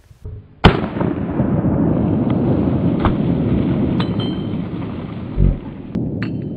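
Glock 42 .380 pocket pistol firing a string of shots, the first and loudest about two-thirds of a second in, then single shots about a second apart and two close together near the end. A faint ring of struck steel follows some shots, over a continuous low rumble.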